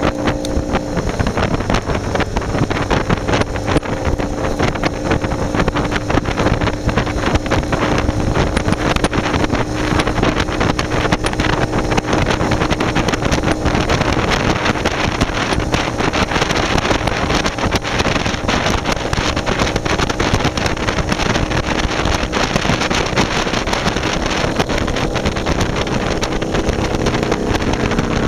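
Motorcycle engine running steadily at highway cruising speed, largely buried under heavy wind buffeting on the microphone.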